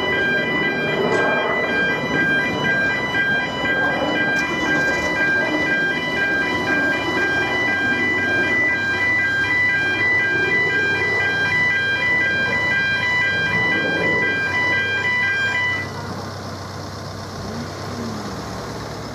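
Automatic level crossing warning alarm sounding a pulsing electronic tone while the crossing is closed to road traffic. It cuts off about sixteen seconds in as the crossing clears.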